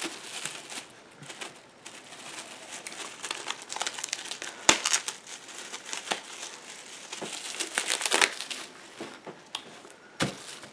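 Handling and sorting a bundle of Cardfight!! Vanguard trading cards: rustling and crinkling with scattered light clicks, and one sharper click a little before halfway.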